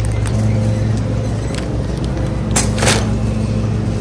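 Steady low mechanical hum, with a few short rustles or clicks over it about a second and a half, two and a half and three seconds in.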